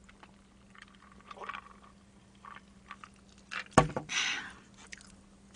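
Quiet sipping from a plastic tumbler of cola, then a sharp knock about four seconds in, followed by a brief rustle.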